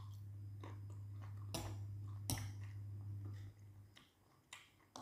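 A metal spoon clicking a few times against a glass bowl, with faint chewing, over a steady low hum that cuts out about three and a half seconds in.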